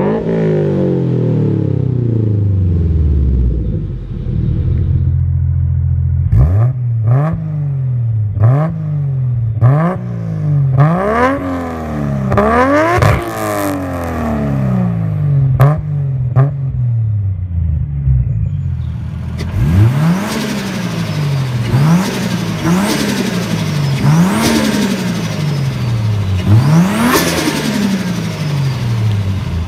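A Subaru BRZ's flat-four, through a Greddy Evolution GT exhaust, falls back from a rev and settles to idle. Then a Toyota Soarer's 1JZ straight-six with a GTX3071 single turbo and aftermarket exhaust is blipped over and over, about once a second. Each rev rises sharply and drops back, with pops and crackles in between.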